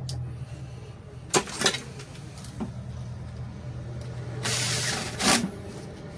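Small metal parts of an electric mower motor being handled and fitted: a few sharp clicks and knocks, with a short hiss about four and a half seconds in, over a steady low hum.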